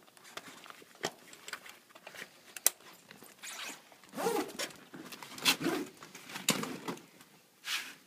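Zipper on a folding kayak's fabric skin being pulled closed in a series of short pulls, the strongest in the second half, with one sharp click about two and a half seconds in.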